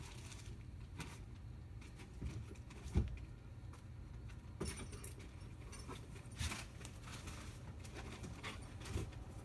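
Loose small metal hardware (bolts, washers and nuts) clinking and rattling as it is handled, with a knock about three seconds in.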